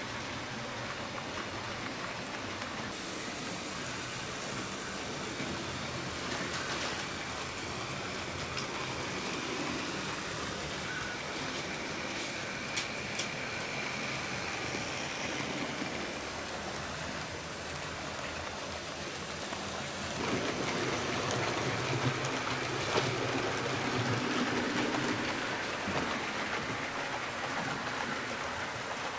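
HO-scale model trains rolling over the layout's track: a steady rolling hiss with a few sharp clicks in the middle, growing louder about twenty seconds in.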